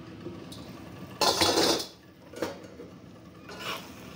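Stainless steel wok lid and metal spatula clattering against a wok: one loud rasping scrape about a second in, then a few lighter clinks as the braised goufu is stirred.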